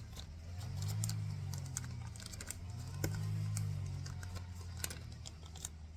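Small metal screws, nuts and washers clicking and clinking against each other as they are picked through and sorted by hand, over a low drone that swells and fades about every two seconds.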